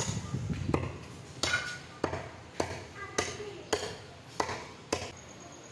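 Meat cleaver chopping through a bone-in piece of beef on a wooden log chopping block: about nine sharp chops in a steady rhythm, roughly one every half second, stopping near the end.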